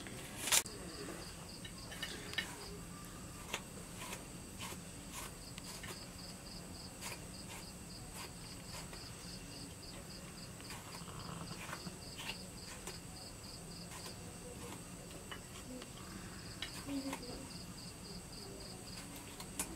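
Insects chirping steadily in a fast, pulsed high trill, with a thin steady high whine. Scattered sharp clicks and taps from cutting garlic and tomatoes on a curved floor-mounted blade, the loudest about half a second in.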